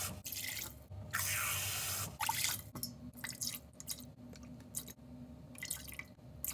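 Two gushes of running water, the first from the tap into a plastic measuring cup in a stainless steel sink. After that come several small trickles and drips as spoonfuls of soy sauce and mentsuyu are poured into a stainless steel pot.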